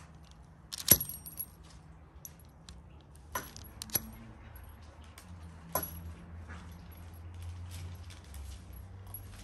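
Fluted metal pastry wheel clicking and clinking as it is run through soft dough and knocks against the paper-lined board: a sharp click about a second in, then a few more scattered through, with smaller ticks between. A low steady hum runs underneath.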